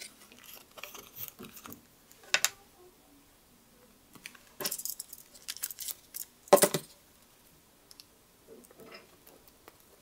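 Small handling sounds of a Swiss Army knife and a small tube in the hands: scattered clicks, taps and rustles, with a sharp click about two and a half seconds in and a louder one about two-thirds of the way through.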